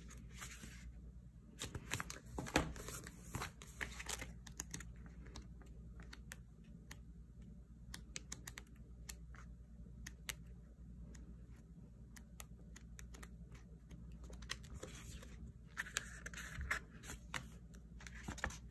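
Sticker book pages and sticker sheets being leafed through and handled: soft paper rustles and crinkles with many scattered light clicks and taps, and a longer crinkle near the end.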